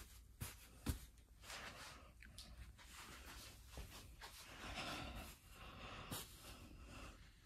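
Faint rustling of bedding as a hand brushes over a cotton duvet, with a few soft knocks of handling noise, the sharpest about a second in.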